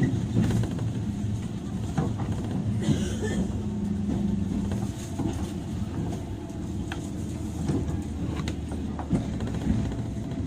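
Interior running noise of a JR 103 series electric train's motor car, MoHa 103-773, in motion. A steady rumble of wheels and running gear carries a motor and gear hum that drops away about halfway through, with scattered short clicks from the wheels and rail joints.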